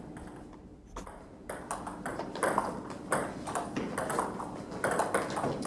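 Table tennis rally: the ball clicks sharply off the paddles and the table in a quick run of taps starting about a second in.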